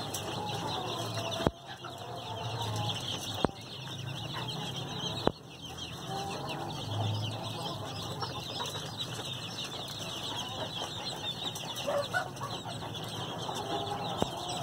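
A crowd of bantam chicks peeping constantly, a dense stream of high, shrill cheeps with some lower chirps mixed in, over a low hum. Three sharp clicks sound in the first few seconds.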